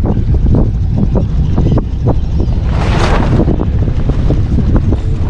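Wind buffeting the microphone on a moving sailboat, a dense low rumble with short sharp spikes, and a louder rush of noise about three seconds in.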